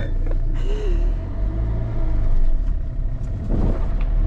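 Engine and road rumble of a small Citroën van, heard from inside the cab while it drives along, swelling slightly about halfway through.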